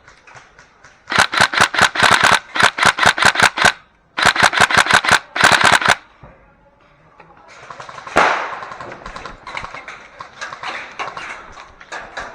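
Airsoft guns firing on full auto: two long loud bursts of rapid shots at about eight or nine a second, then fainter, more scattered fire.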